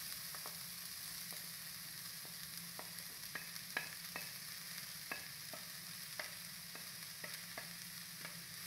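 Sliced onions sizzling faintly in a hot pan that has no oil in it yet, while a spoon stirs them. The spoon knocks against the pan about a dozen times at irregular moments.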